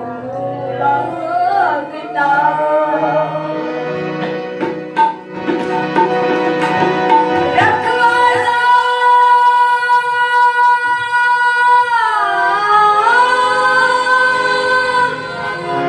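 A boy singing an alap in raag Shivaranjani: slow, unmetered phrases that glide between notes, with one long steady note held from about halfway through to three-quarters through.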